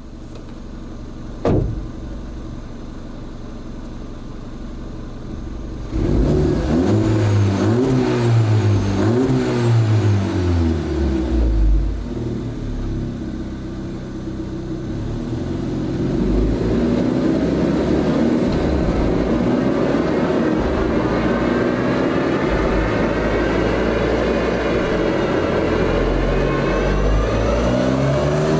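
Audi A1 1.4 TFSI twincharged four-cylinder petrol engine, stage 1 remapped and breathing through the stock exhaust, running on a dyno. It idles, gives a few quick revs about six seconds in, then settles into a long loaded run with the engine speed climbing slowly for about ten seconds before it drops near the end.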